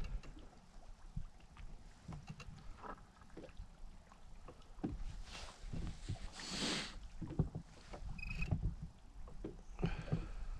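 Quiet handling sounds in a small fishing boat: scattered light knocks and clicks over a low, steady rumble, with two brief rushes of noise around the middle.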